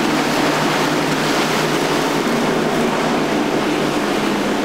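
Twin Mercury 300 outboard engines on a Boston Whaler cabin boat running at speed, a steady hum under the loud rush of hull spray and wind.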